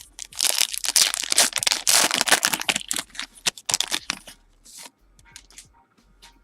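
Trading-card pack wrapper crinkling and tearing as it is opened: dense crackling for the first four seconds or so, then a few light clicks of cards being handled.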